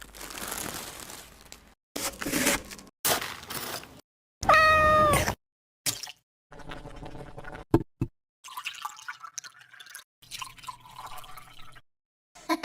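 A string of short, separate edited sound snippets: noisy hissing and rustling bursts, a loud drawn-out cat meow about four and a half seconds in, then short clicks and scraping noises.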